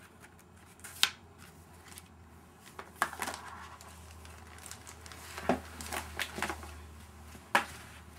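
Packaging being handled by hand: crinkling and rustling with several sharp clicks and knocks, the loudest about a second in and near the end.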